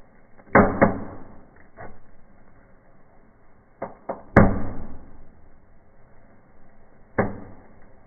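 Indoor fireplace fireworks going off: about seven sharp pops and cracks at uneven intervals, each with a short fading tail. The loudest comes about four and a half seconds in, after a quick pair of smaller ones.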